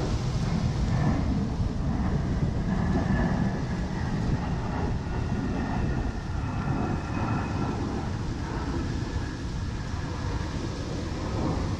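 Wind buffeting the microphone with an uneven low rumble, and a faint distant high whine drifting in for a few seconds partway through.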